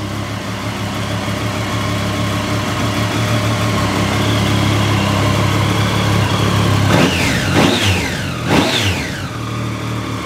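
2016 Triumph Street Triple 675R's 675cc inline three-cylinder engine idling steadily through an aftermarket Arrow exhaust with its baffle fitted. About seven seconds in, it is revved in three quick blips, each rising sharply and falling back to idle.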